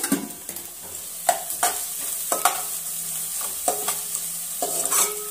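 Metal spoon scraping and clinking against a metal pan as chopped onions and green chillies are stirred, over a steady sizzle of them frying in oil. The strikes come at uneven intervals, about two a second, several with a short metallic ring.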